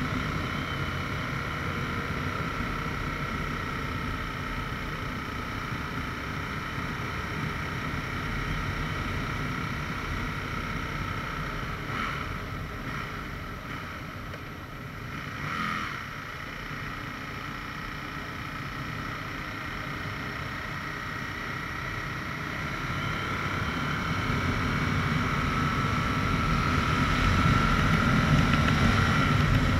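Aprilia RSV 1000 R's 60-degree V-twin engine running while the bike is ridden, with wind noise over the microphone. It eases off a little in the middle, then grows steadily louder over the last several seconds.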